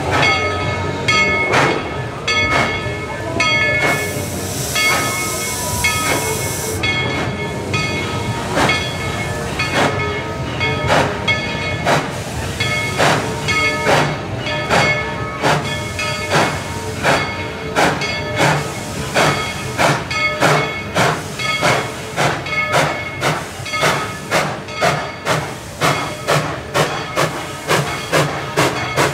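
Steam locomotive working toward the listener, its exhaust beating in a regular rhythm that quickens to about two beats a second near the end. A burst of steam hiss comes about four seconds in and lasts some three seconds.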